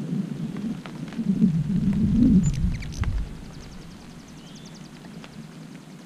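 Hummingbird wings humming as the birds hover close at a feeder, the hum swelling and fading and loudest in the first half. A deeper rumble comes about two to three seconds in, with scattered light ticks of rain and a brief high chirp.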